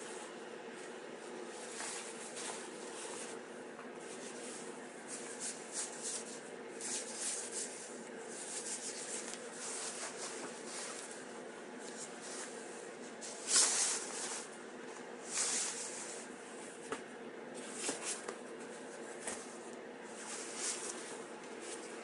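Fabric rustling and swishing as Wiggy's insulated mukluks and booties are handled and turned over, in irregular short bursts, the loudest about two-thirds of the way through, over a steady low hum.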